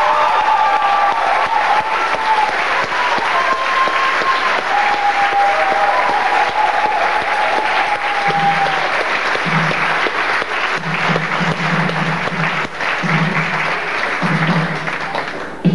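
Theatre audience applauding at the end of a musical number. A few wavering held tones fade out over the first half, and short low music notes start coming in about halfway through.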